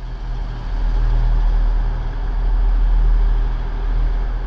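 A steady low mechanical hum and rumble of a running vehicle or machine.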